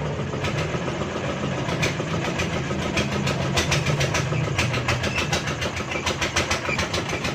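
A steady engine-like mechanical hum, with many sharp metallic clicks and taps over it, thickest in the second half.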